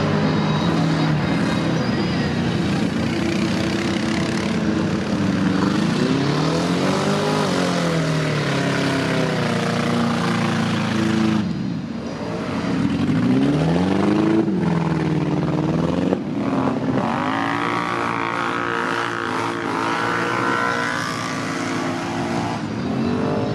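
ATV engines at a mud bog, an Argo 8x8 amphibious ATV and quad ATVs, revving up and dropping back again and again as they drive through mud and muddy water. There is a short lull about halfway through.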